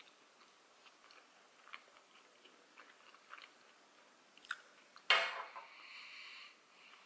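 Faint close-up chewing of a sushi roll, with soft wet mouth clicks. About five seconds in there is one sudden, louder rush of noise that fades over about a second.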